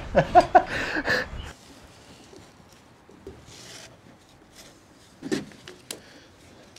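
Short voice-like sounds over outdoor background cut off abruptly about a second and a half in. After that, quiet handling: faint rubbing and rustling of a rope being looped around a wooden engineered beam, with a couple of light knocks near the end.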